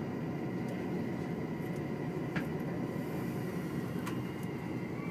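Steady low rumble of a Tango Explorer diesel train, with a faint steady high tone over it and a couple of light clicks.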